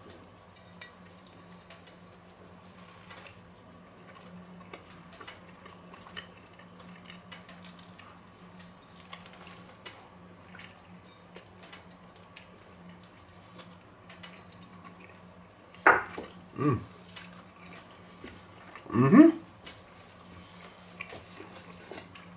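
A person eating a chicken burger off a plate: scattered small clicks of chewing and of the plate over a faint steady hum. About 16 and 19 seconds in come two short rising vocal noises, the second the loudest.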